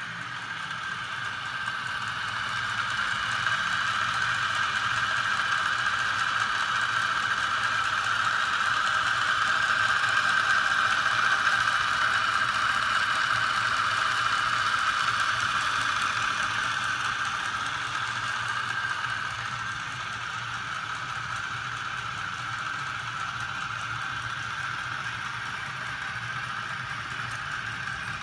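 Small 12 V electric motor running a homemade magnet crankshaft machine with a steady high whine over a low hum. It swells louder toward the middle, then eases back.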